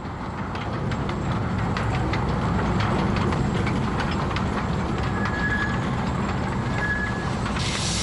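Narrow-gauge forest railway train running along the track: a steady rumble with wheels clacking over the rail joints. It grows louder over the first second or so. Two short high squeals come about five and seven seconds in.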